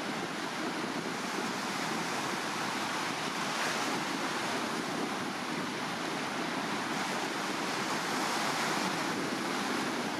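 Steady rush of sea surf and strong wind, an even noise with no distinct events.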